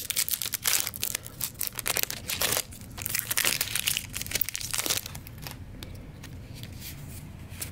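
Foil wrapper of a Magic: The Gathering Modern Horizons 2 draft booster pack crinkling and tearing as it is opened by hand, for about five seconds. Then come quieter, scattered rustles and clicks.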